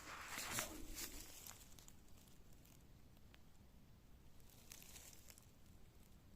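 Rustling of forest floor litter underfoot for about the first second and a half, then near silence with a few faint ticks.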